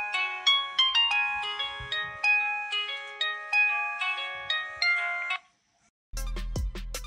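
Smartphone ringtone playing a quick melody of short chiming notes, about two a second. It stops about five and a half seconds in, and after a brief gap a different phone tune with a bass and drum beat begins.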